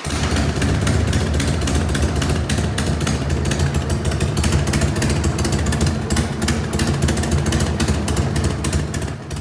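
Harley-Davidson Sportster XL1200C's air-cooled V-twin engine idling steadily with a pulsing exhaust note.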